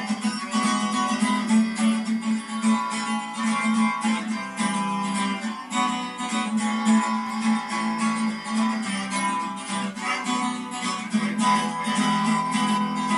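Acoustic guitar strummed in a steady rhythm, with a harmonica playing sustained chords and notes over it.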